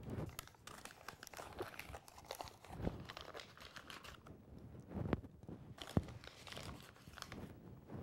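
Flour being scooped and added to a mixing bowl: soft rustling and crinkling of the flour bag with scattered small clicks and a few light knocks of the measuring cup.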